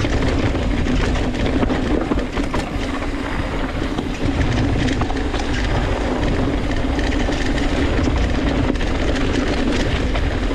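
Polygon Siskiu N7 mountain bike ridden down a dirt trail: a steady rolling rumble with frequent rattling clicks from the bike over the bumps, easing slightly a couple of seconds in.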